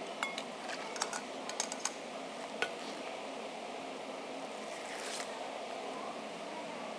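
Stainless steel bowls and a steel ladle clinking and knocking, a handful of sharp metallic clicks in the first three seconds, with a brief rustle about five seconds in, over steady room noise.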